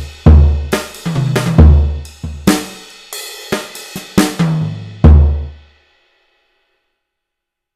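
Roland V-Drums electronic drum kit playing a closing fill: kick, snare and cymbal strokes, a run of tom hits stepping down in pitch, and a last kick-and-crash hit about five seconds in that dies away into complete silence.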